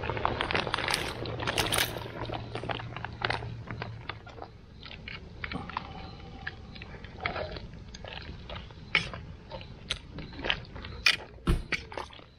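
Plastic shrimp bag crinkling as pre-cooked shrimp are emptied into a boil pot for the first few seconds, then scattered sharp clicks and knocks as the food in the metal strainer basket is handled.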